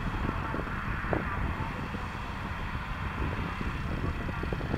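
Case tractor's diesel engine running steadily under load as it pulls a plow through the field, with scattered irregular knocks and rattles.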